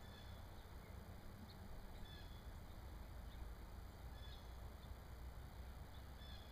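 Small songbirds giving short, high chirps every second or two, over a faint low rumble.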